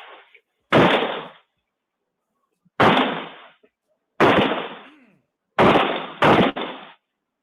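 Gunshots picked up by a Ring doorbell camera's microphone: five loud shots, spaced one to two seconds apart with the last two close together, each ringing out for most of a second.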